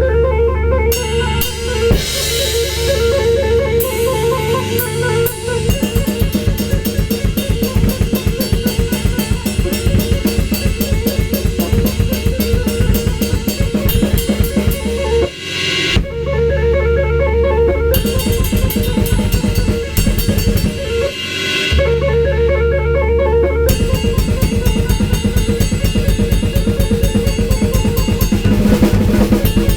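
Drum kit played in a fast improvisation, with rapid bass drum and snare strokes, over a backing of recorded audio samples. The dense drumming breaks off briefly twice, about halfway through and again a few seconds later.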